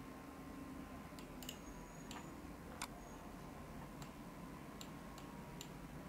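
Faint, scattered clicks of a computer mouse, several short clicks irregularly spaced, over a faint steady hum.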